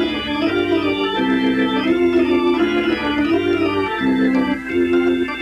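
Organ music playing held chords that change every half second or so over a bass line.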